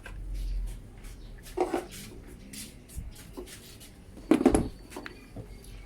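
Hard objects being handled: clatter and scattered knocks, the loudest a short cluster of knocks about four and a half seconds in, with another near a second and a half in.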